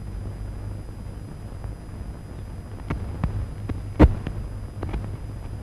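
Steady low hum and hiss of a worn 1935 film soundtrack, broken by a few scattered clicks in the second half and one louder pop about four seconds in.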